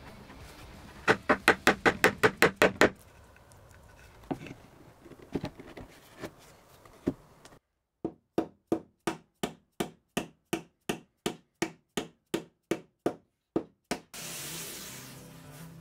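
Mallet driving wooden wedges into a table leg's through-tenon. A quick run of about ten taps comes first, then a few single knocks, then a steady series of blows, about two or three a second. Near the end the blows stop and a short hiss follows.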